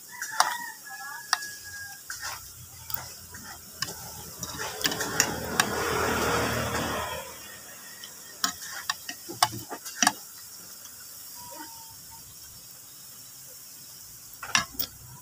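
A metal fork and spoon click and scrape against a plate of rice in scattered sharp taps. A louder rushing sound with a low hum swells and fades between about five and seven seconds in.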